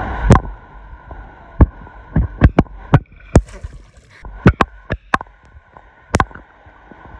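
Swimming-pool water heard with the camera underwater: a muffled watery rush broken by about a dozen sharp, irregular knocks and pops as a child swims and splashes.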